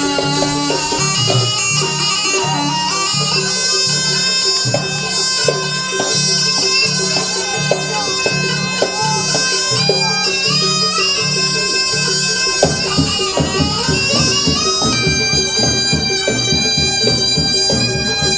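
Live jaranan accompaniment: a reedy, bagpipe-like shawm plays a sustained wavering melody over a steady drum-and-gong pulse. About two-thirds of the way through, the drumming becomes denser.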